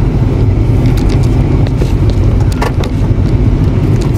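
Steady low rumble of a car's road and engine noise heard from inside the cabin while driving, with a few light clicks.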